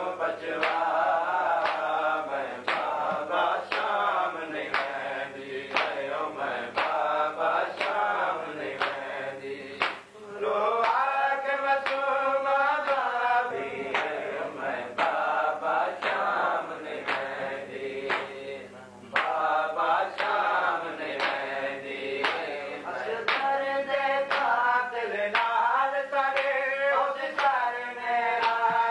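A man's voice chanting a Shia mourning recitation (noha) in a steady rhythm, with other voices joining, over sharp regular beats about two a second. The chant breaks briefly between lines about ten and nineteen seconds in.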